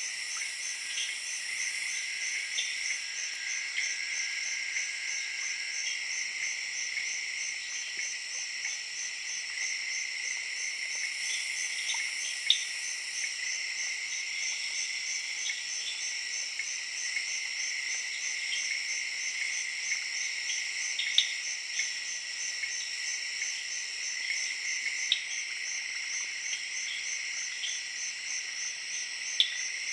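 Night-time jungle chorus of tree frogs and crickets: a steady high trill under a higher, evenly pulsing trill at about three beats a second. Short, sharp calls stand out from the chorus four times.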